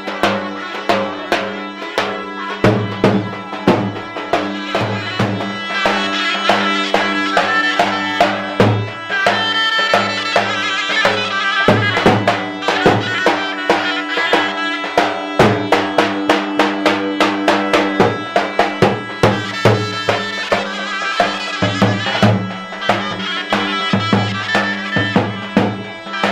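Traditional folk music: wind instruments playing a melody over a steady held drone, with a large drum beating a fast, even rhythm.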